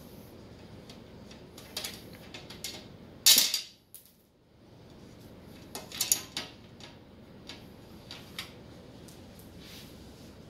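Hands handling a glass-panelled PC case and its packing make scattered clicks, taps and knocks. The loudest is a half-second clatter about three seconds in, with another cluster around six seconds.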